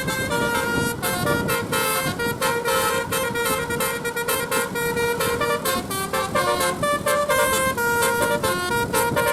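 Telolet basuri musical bus horn blaring through roof-mounted horn trumpets, playing a melody whose notes step up and down several times a second, over a low rumble of engine and street noise.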